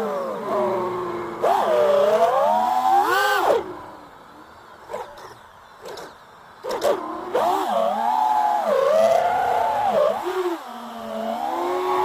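FPV racing quadcopter's brushless motors and propellers whining, the pitch sweeping up and down with the throttle. The whine falls away for about two and a half seconds near the middle, with only short blips, as the throttle is cut, then comes back and settles into a steady, slowly rising tone. Heard through the drone's onboard camera microphone.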